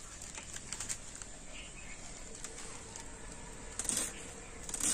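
Raw cabbage being sliced on a bonti, an upright blade fixed to a wooden base on the floor: a few short cutting sounds, the loudest about four seconds in and just before the end, with quiet between.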